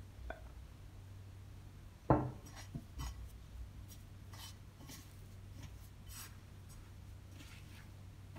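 A bowl knocks down sharply once about two seconds in, with a short ring. Soft, scattered rubbing and scraping follow as a hand works flour into bread dough in a mixing bowl.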